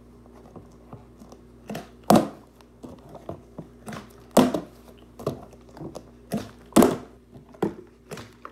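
Plastic drink bottle being flipped and landing on a hardwood floor: three loud thunks about two to two and a half seconds apart, the third the loudest, with lighter knocks and handling taps in between as it is picked up and set for the next flip.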